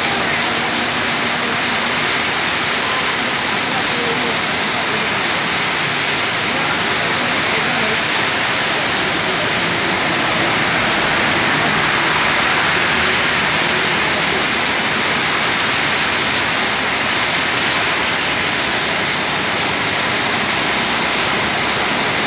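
Heavy rain falling in a steady, dense hiss on a road and pavement, growing a little louder around the middle.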